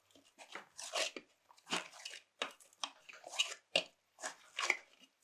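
Egg-and-flour pasta dough being kneaded by hand in a glass bowl: a run of short, irregular sticky squishing sounds, about two or three a second.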